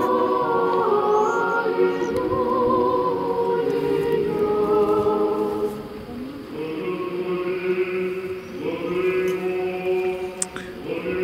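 Choir singing a slow chant in long held chords. The singing grows quieter for a moment about halfway through, then a new chord begins.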